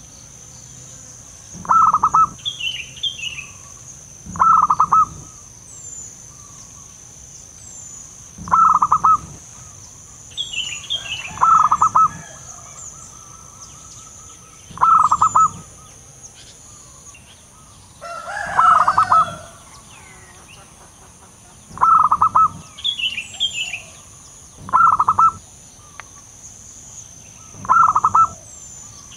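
Zebra dove (perkutut) calling: a short burst of rapid, stuttering coo notes, repeated about every three seconds. Faint higher chirps of small birds come in now and then.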